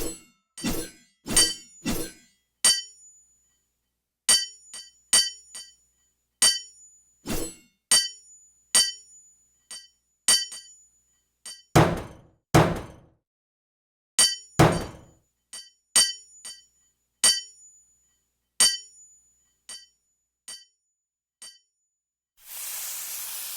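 Hammer blows on an anvil while forging: sharp ringing strikes in runs of a few blows, with pauses between them and a few heavier, duller blows about halfway through. A short hiss comes near the end.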